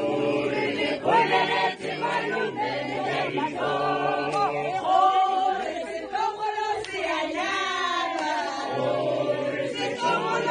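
A group of people singing together without instruments, a traditional wedding song, with several voices overlapping throughout.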